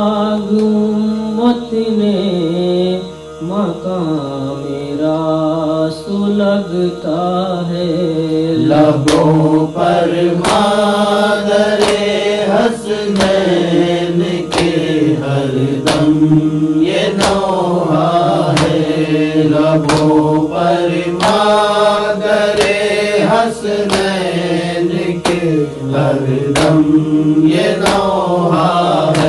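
Voices chanting a slow noha lament melody. From about nine seconds in, a regular beat of sharp percussive strokes runs under the chanting.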